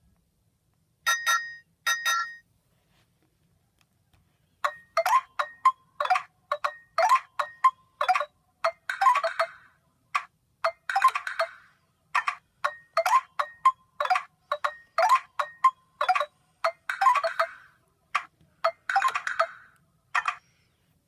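Nokia 216 ringtone played from a Nokia 7100 Supernova's loudspeaker. Two short notes about a second apart, a pause, then a melody of short, sharply struck notes at about two to three a second that stops shortly before the end.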